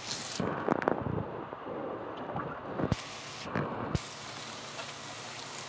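Water sloshing and splashing as a plastic bag of fish is tipped and emptied into a glass aquarium tank, with a few sharp knocks about a second in, near three seconds and near four seconds.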